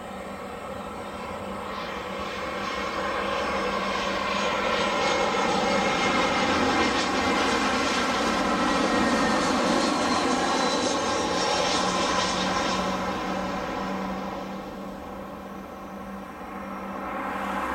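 Airbus A320 jet airliner on final approach: the engines' steady whine and rumble grow louder as it passes close, then fade, with a fresh swell near the end as it lands.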